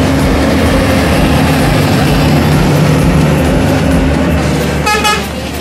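Heavy diesel engine of a tanker tractor-trailer running steadily as the truck passes close by. Near the end a vehicle horn sounds once, briefly, and the engine sound then drops away.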